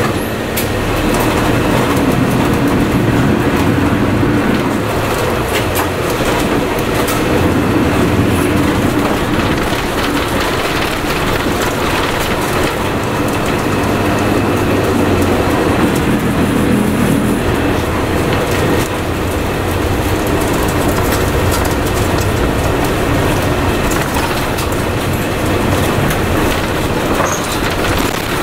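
Cabin sound of a 1998 Mitsubishi Fuso Aero Midi MK (KC-MK219JVF) route bus on the move: its diesel engine and road noise make a steady rumble.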